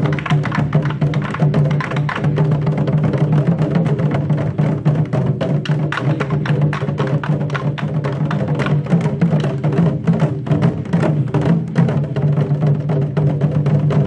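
Korean barrel drums (buk) hung in wooden stands, beaten rapidly with wooden sticks in a fast, dense rhythm. Under the strikes runs a steady low droning tone.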